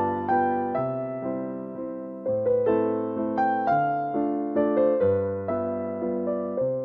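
Background music: a gentle piano melody over sustained bass notes, each note struck and fading.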